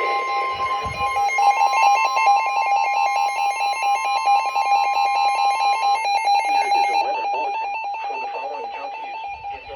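NOAA Weather Radio alert tones: a steady 1050 Hz warning alarm tone that cuts off about six seconds in, heard together with a lower tone pulsing rapidly on and off, which fades out near the end.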